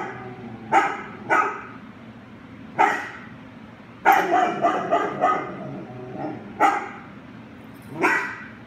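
A large tan dog barking repeatedly in short sharp barks at a stranger sitting still, with a quick run of about four barks midway: fear-aggression barking.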